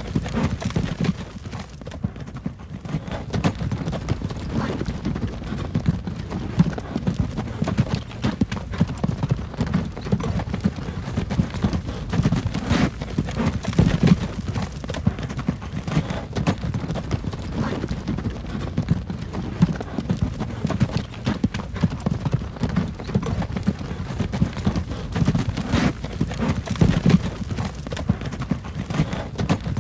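Horse-drawn wagon on the move: hooves clip-clopping over a steady low rumble of the wheels.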